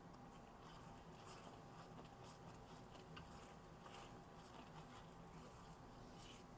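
Faint, irregular small pops and ticks of jaggery syrup simmering over low heat, with a low steady hum underneath; overall close to silence.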